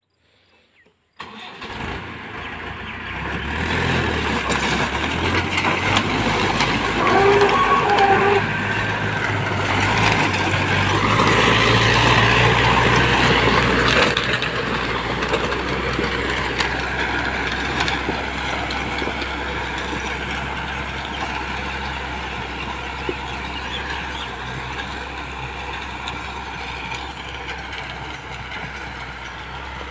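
Tractor engine running under load while its rotavator chops papaya plants and fruit into the soil. The sound starts about a second in, is loudest through the middle and slowly gets quieter as the tractor moves further off.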